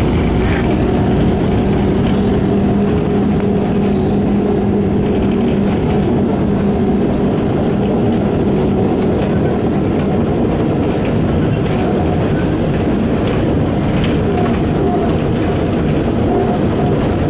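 Ikarus 260.50 city bus under way, heard from inside the cabin: a steady engine drone with road noise and the rattle of the bus body.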